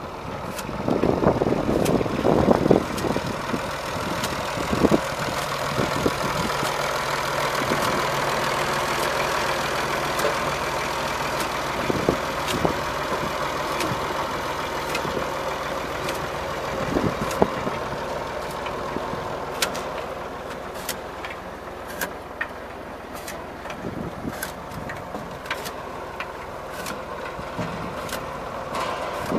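Ford 4000 tractor engine running steadily under load while pulling a sugarcane planter, with scattered sharp clicks and knocks throughout, more of them in the second half.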